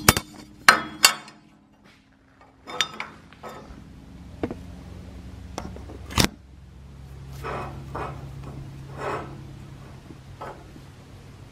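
Scattered metal clinks, knocks and light scrapes as a steel angle square and a cut piece of rectangular steel tubing are handled and set against each other on a steel surface. The loudest knock comes about six seconds in. A faint, low, steady hum runs underneath in the second half.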